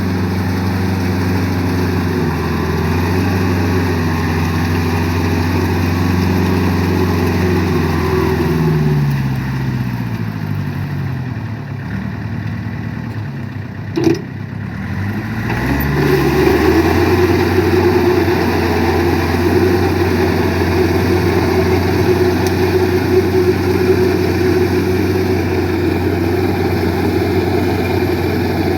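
Farm tractor engine running steadily. About eight seconds in, its pitch falls as it slows to a low idle; there is a single click about halfway through, then it picks back up and runs steadily again.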